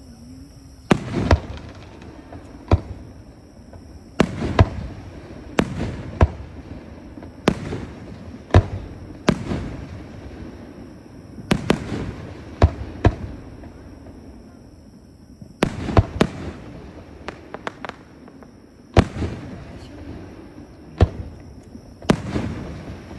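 Fireworks bursting overhead: a long irregular series of sharp bangs with echoing tails, some coming in quick pairs and clusters, with a short lull just before the middle.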